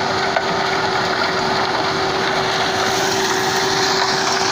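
Road-construction machinery running steadily: a constant engine drone with a steady hum and no change in pace.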